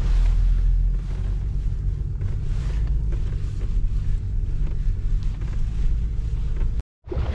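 Wind buffeting the microphone at the seashore, a steady low rumble.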